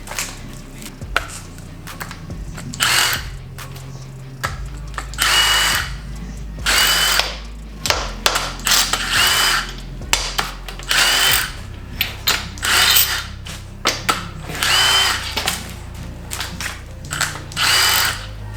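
Handheld power tool run in about ten short bursts, each spinning up with a brief rising whine. It is backing out fasteners, likely the main-cap bolts, as a small-block Chevy V8 is stripped down to the block.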